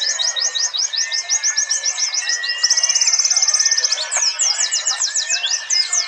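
Several white-eyes (Zosterops, pleci) singing at once in dense, overlapping songs of fast high chirps, with a rapid even trill a little past halfway.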